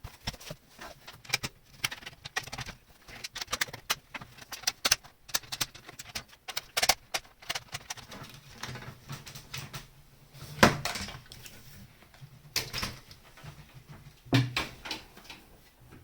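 Many small clicks and knocks of a screwdriver, screws and plastic parts being handled while a Commodore 64 keyboard is unscrewed, with a few louder knocks in the second half over a low steady hum.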